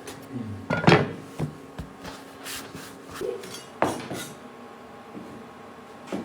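Kitchen work clatter: a handful of separate knocks and clinks of utensils and dishes on a work surface, the loudest about a second in, over a faint steady low hum.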